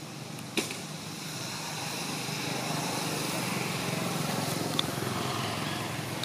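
A motor vehicle's engine running, growing louder over a few seconds and then easing off, with a sharp click about half a second in.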